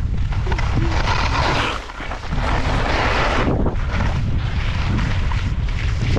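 Wind buffeting the microphone of a skier's POV camera during a descent, with skis hissing and scraping over chopped snow in surges as they turn, and a brief lull about two seconds in.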